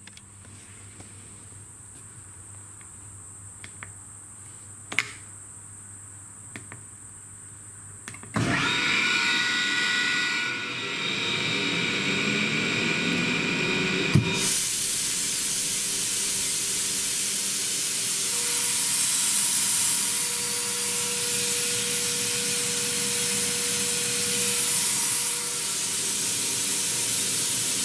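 An ELGI E05en rotary screw air compressor starts up about eight seconds in, after a few faint clicks. About six seconds later there is a sharp click as it goes onto load, and compressed air then blows out of a discharge hose vented to atmosphere with a loud steady hiss. The short hose alone builds about 1.6 bar of back pressure.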